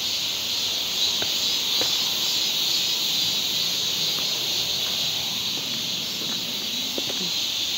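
Steady, high-pitched chorus of insects, with a few faint clicks over it.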